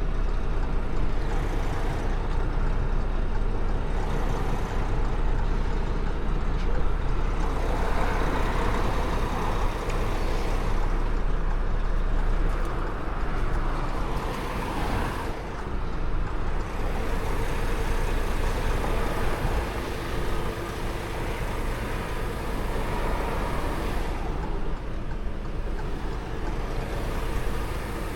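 Diesel truck engine running steadily with a low rumble, with surges of hissing noise now and then.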